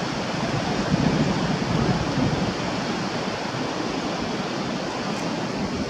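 Steady rushing of running water, a small waterfall or cascade, with no distinct events.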